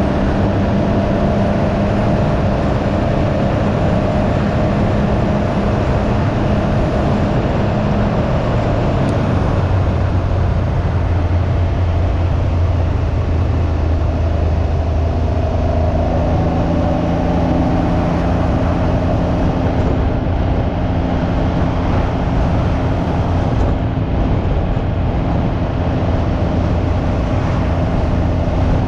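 Can-Am Ryker 900's three-cylinder Rotax engine running while riding, with wind rushing over the microphone. The engine note drops about eight seconds in and rises again around sixteen seconds.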